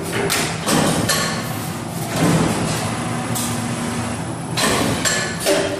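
Transformer lamination cutting machine running, with sharp strokes of its shear and punching units cutting the steel strip. There are two strokes in the first second and a quicker run of them near the end, over a continuous mechanical noise.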